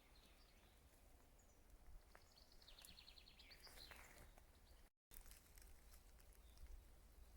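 Faint songbird singing, a rapid trill of repeated high notes about two to four seconds in, over a low rumble of wind on the microphone. The sound cuts out completely for a moment about five seconds in.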